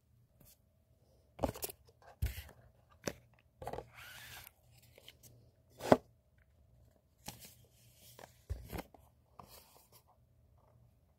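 Cardboard cosmetic boxes and a kraft paper bag handled on a tabletop: scattered knocks and taps as boxes are picked up and set down, with about a second of paper rustling some four seconds in and the sharpest knock near the middle.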